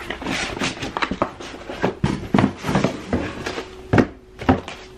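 Cardboard box and moulded paper-pulp case being handled: rustling, with an irregular string of knocks and scrapes as the case is pulled out of the box.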